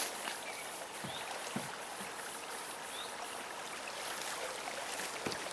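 Steady hiss of a small river's flowing water, with a few faint short chirps and a few soft low knocks.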